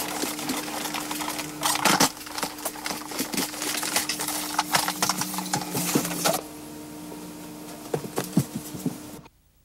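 Canister vacuum cleaner running over a rug, a steady hum under dense rattling and clattering. The clatter stops abruptly about two-thirds of the way through, leaving a quieter hum with a few clicks, and the sound drops out briefly just before the end.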